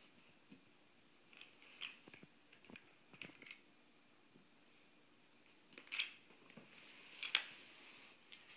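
Large plastic toy building blocks clacking as they are handled and knocked together, in scattered sharp clicks, with two louder clacks in the second half.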